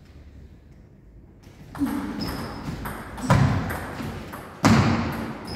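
Table tennis rally in a large echoing hall: after a quiet start, the celluloid ball is struck and bounces on the table, with three loud knocks a second or so apart, heavy enough to carry the thud of the table and the players' footwork on the wooden floor.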